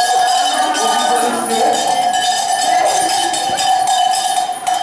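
Cowbells on a shaggy devil's costume clanging continuously as the wearer moves, with one strong ringing pitch throughout.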